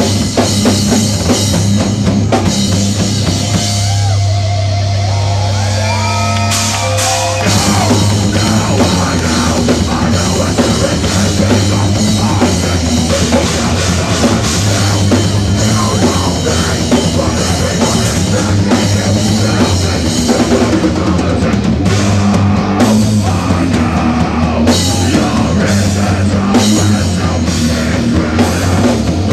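A rock band playing heavy rock, with a drum kit, distorted guitars and bass. About four seconds in the band drops back to a wavering lead guitar line with bends, and the full band comes back in about three seconds later.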